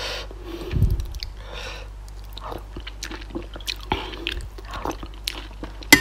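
Close-miked chewing and mouth sounds of a person eating, with many small wet clicks, and a sharp click of a metal spoon against the soup bowl near the end.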